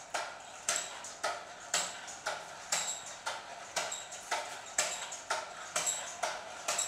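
Air-powered toy RC car's piston engine running slowly at low pressure, its slider valves venting air in an even rhythm of puffs and clicks, several a second with a stronger one about once a second.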